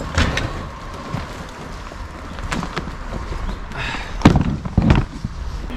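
Several knocks and thumps of junk being handled and set down, the loudest a little after four seconds in and another just before five.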